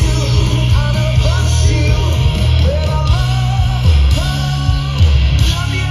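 Live rock band playing through a loud PA: electric guitars, bass and drums, with a lead singer singing over them.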